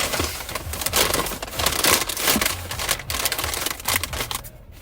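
Close rustling and crinkling handling noise in irregular bursts, fading near the end.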